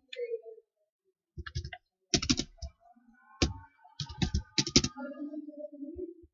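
Keystrokes on a computer keyboard: several quick clusters of key presses over about three and a half seconds.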